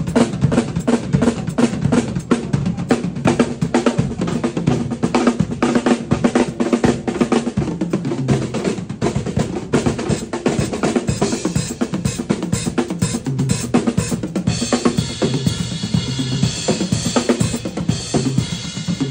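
Two acoustic drum kits played together in a fast drum shed: dense, rapid snare, tom and bass drum strokes, with a heavy cymbal wash coming in about three-quarters of the way through.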